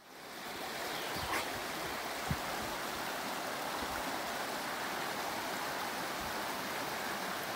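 Shallow stream running over rocks: a steady rush of water that fades in at the start.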